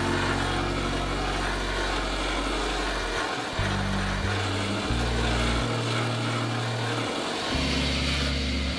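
Steady rushing noise of an air-powered hand tool worked against the fiberglass rear lower valance, over background music with a low bass line that changes note about every second.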